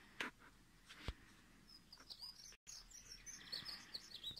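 Faint bird chirping: a quick run of high, squeaky notes through the second half, after two sharp clicks in the first second.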